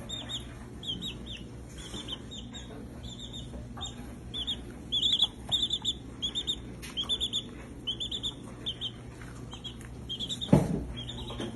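Baby chick peeping: many short, high chirps in quick runs, several a second, with a low hum underneath. A single loud thump about ten and a half seconds in.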